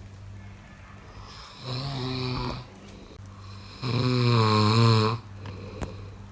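A person snoring: two snores, a shorter one about a second and a half in and a louder, longer one with a pitched, wavering drone around the fourth second. A steady low hum runs underneath.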